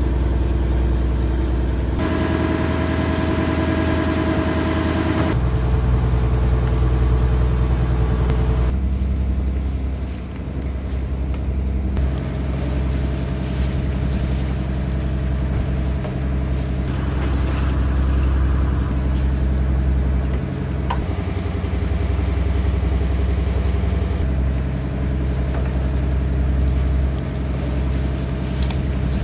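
A boat engine running steadily, its pitch and tone changing abruptly every few seconds.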